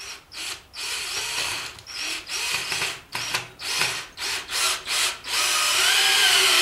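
Corded drill driving a 3-inch star-head deck screw into a wooden post. The trigger is pulsed in a string of short bursts at first, then held for a longer unbroken run from about five seconds in.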